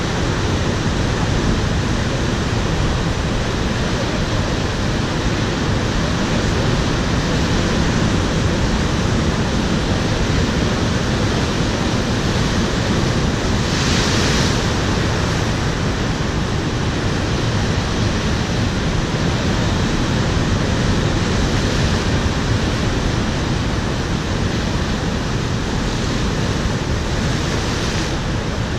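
Ocean surf breaking over rocks, a steady rush of churning white water. About halfway through, one wave crashes hard against the rocks and throws up spray, with a couple of smaller surges near the end.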